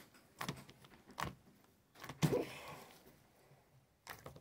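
Blue glitter slime being squeezed and pulled by hand: a few sticky clicks and pops, with one louder squelch about two seconds in.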